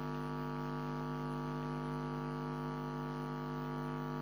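Steady electrical hum with several pitches stacked together, unchanging throughout, over a faint hiss.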